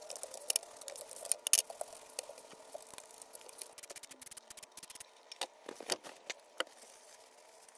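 Scattered scraping, clicks and light knocks as a wire brush scrubs a truck's front wheel hub and the hub is handled, with a faint steady hum underneath. This is the hub being cleaned out after its old bearing races were removed.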